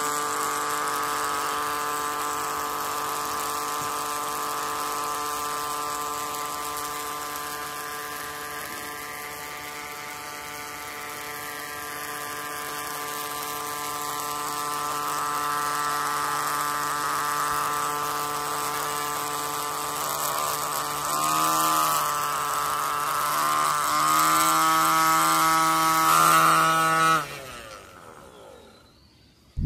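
Small electric motor of a miniature model engine driving a toy water pump, running with a steady whine. Its pitch wavers a few times near the end, then it is switched off and winds down with a falling whine to a stop.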